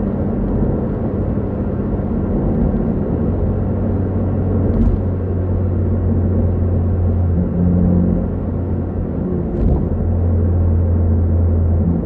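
Hyundai Veloster N's turbocharged 2.0-litre four-cylinder engine and exhaust droning inside the cabin at high revs, a steady low hum that steps in pitch a few times. Two short sharp cracks come about five seconds apart.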